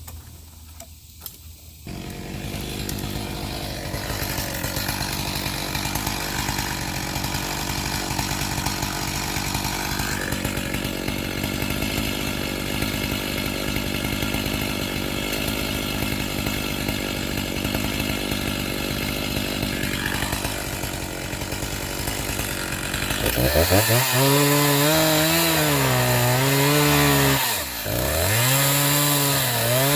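Chainsaw engine comes in about two seconds in and runs steadily, then near the end is revved, its pitch swinging up and down several times with a short drop in between.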